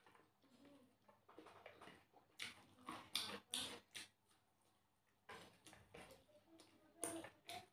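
Faint, irregular eating sounds: short mouth noises of a person biting and chewing food eaten by hand, coming in scattered bursts.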